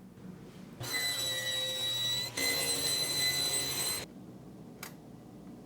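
A power tool running in two runs of about a second and a half each, with a steady high-pitched whine and a brief break between them.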